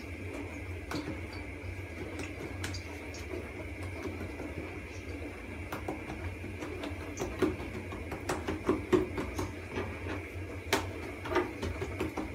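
Hands pressing and patting pişi dough flat on a wooden board: scattered light taps and clicks, busier in the second half, over a steady low hum.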